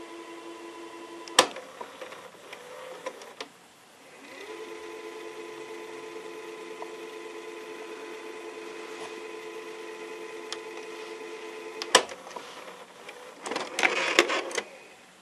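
Telerent N9004T (Panasonic NV-810EG) VHS video recorder's tape mechanism: a steady motor whine stopped by a sharp mechanical clunk, then a few clicks. The whine then rises and holds for about seven seconds before another clunk. Near the end there is a rattling clatter as the cassette is ejected.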